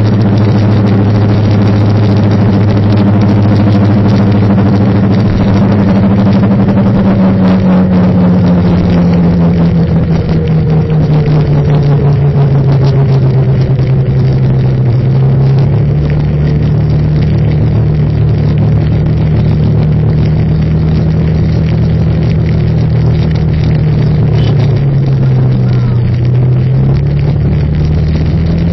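A vehicle engine running steadily while driving in city traffic, over constant road noise. Its pitch slides down gradually, jumps up about halfway through, dips briefly and rises again near the end.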